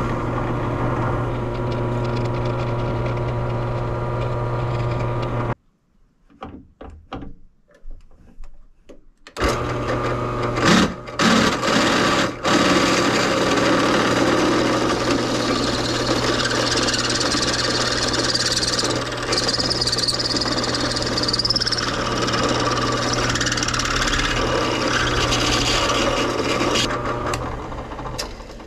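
Electric drill running steadily as it bores a pilot hole in an aluminium plate. It stops about five and a half seconds in, with a few light clicks, then starts again about four seconds later. It has a brief higher-pitched squeal partway through the second run and winds down near the end.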